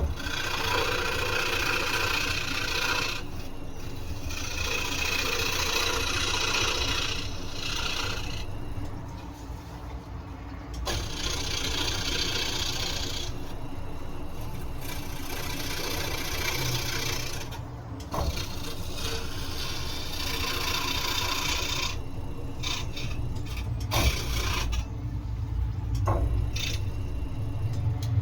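Scroll saw running, its blade cutting through wood in stretches of a few seconds with short breaks between, over the steady hum of the saw's motor.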